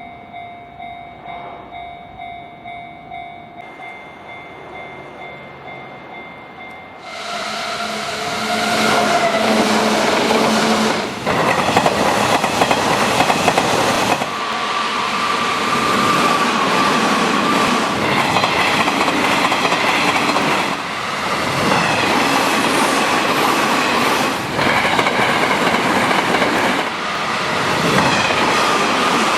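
Japanese level crossing warning bell ringing in a steady rhythm. About seven seconds in, an electric train on the Hanshin Main Line passes over the crossing, its rolling noise and wheel clatter drowning out the bell.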